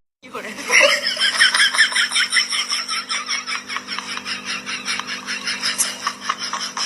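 Rapid, continuous laughter in quick bursts of about six a second over a steady low hum, starting just under a second in after the music cuts off.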